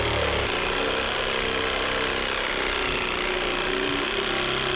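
Electric power saw cutting through construction lumber, its motor running steadily with a whine that sinks slowly in pitch as the blade works through the board.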